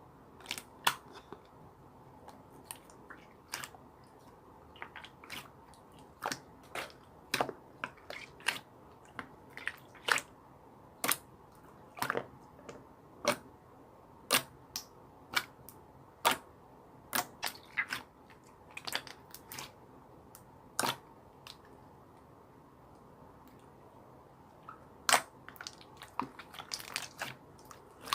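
Purple pearl slime being squeezed and stretched by hand, giving sharp, irregular clicking pops of trapped air, about one or two a second, with a pause of a few seconds near the end before the pops start again.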